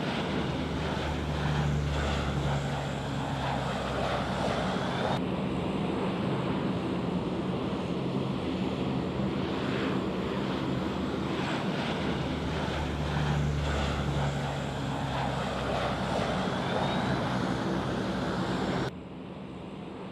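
Aircraft engines droning steadily as an airplane flies away from the airfield, with a rushing noise underneath. The sound drops abruptly near the end.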